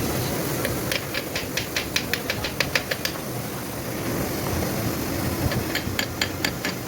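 Sharp clicks about five a second, in two runs with a pause between, from hand tools at work on a steering rack assembly, over steady low workshop noise.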